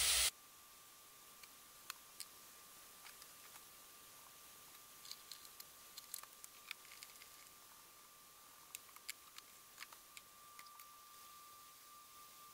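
Faint, scattered pops and crackles of chicken searing in hot oil in a frying pan, with a faint steady high-pitched tone underneath.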